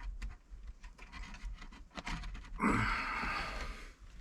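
Small clicks and scrapes of hands handling plastic trim and parts, then a long breathy exhale, a sigh, a little past the halfway point that is the loudest sound.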